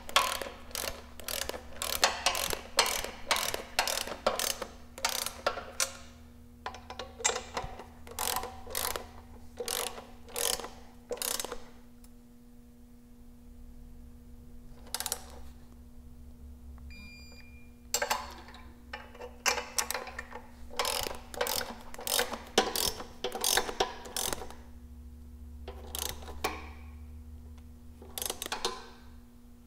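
Ratcheting torque wrench clicking in quick runs as the J-pipe flange nuts are tightened in turn, with short pauses between runs. A steady low hum runs underneath.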